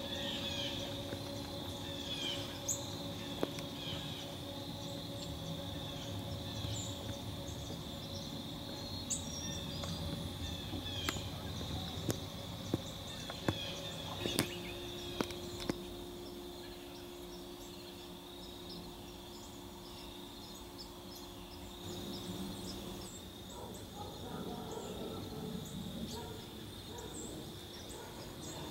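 Faint outdoor ambience: a steady high hum with scattered bird calls, and a series of light sharp clicks in the first half.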